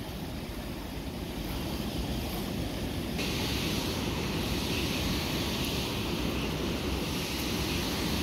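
Wind buffeting the microphone over the steady rushing of river water, a continuous noise with no distinct splashes or knocks; the hiss turns brighter about three seconds in.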